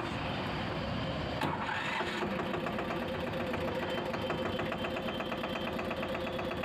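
Eicher 188's 18 hp single-cylinder air-cooled diesel engine idling with an even, rapid beat, which comes through more clearly about two seconds in.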